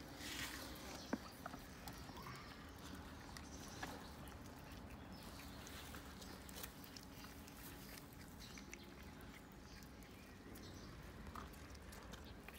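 Cats eating: faint chewing and scattered small clicks over a quiet background with a low steady hum, and one sharper click about a second in.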